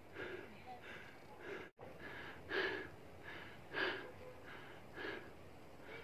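A person panting heavily from the exertion of climbing a steep slope, roughly one breath every half second, with a few louder gasps in the middle.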